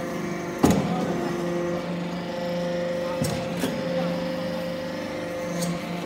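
Aluminum-chip hydraulic baler and its chip conveyor running with a steady machine hum. A sharp metallic clank comes about half a second in, and two more knocks come around halfway.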